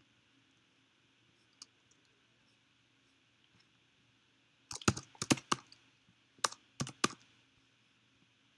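Computer keyboard keystrokes: a quick run of sharp taps about five seconds in, then three single taps over the next two seconds, with little else audible before them.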